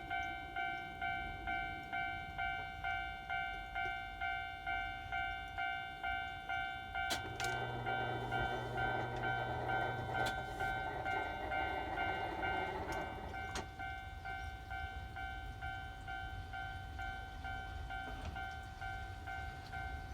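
Japanese level-crossing warning bell ringing at about two strokes a second. Between about 7 and 13 seconds in, the cable car rolls over the crossing: a rumble on the rails with a low hum and a few sharp clicks.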